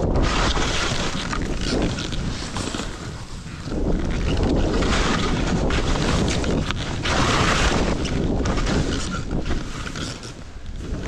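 Wind buffeting the microphone at skiing speed, with skis hissing through deep fresh snow in surging turns, each swell a few seconds long.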